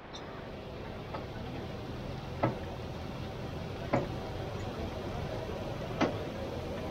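Oil sizzling steadily in a large wok of deep-frying fish, with three sharp clicks about two seconds apart.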